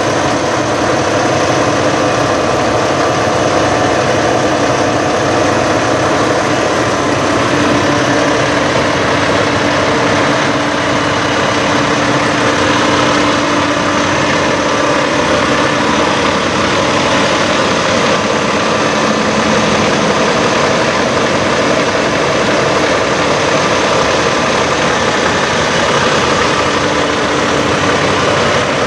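Peterbilt 389 semi tractor's diesel engine idling steadily.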